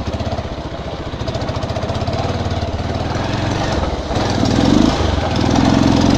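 Bajaj Pulsar 220's single-cylinder four-stroke engine running at low speed with an even exhaust beat; about four seconds in the throttle opens and it runs louder and higher.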